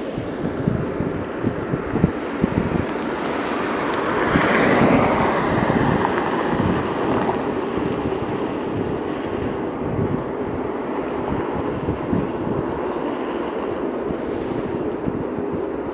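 Airbus A380's jet engines running at taxi power, a steady rumble and hiss with wind buffeting the microphone. The noise swells briefly about four seconds in, and a steady hum runs through the last few seconds.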